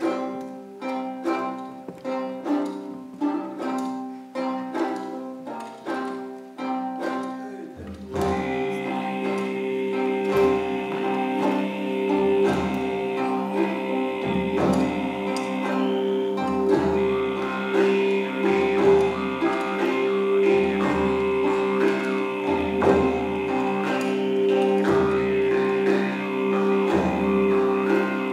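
A Kazakh folk ensemble playing traditional instruments: plucked lute, zither, frame drum and flute. For about eight seconds only quick, rhythmic plucked-string notes are heard. Then a fuller sound takes over, with a steady drone, a high held tone and a deep low beat about every two seconds.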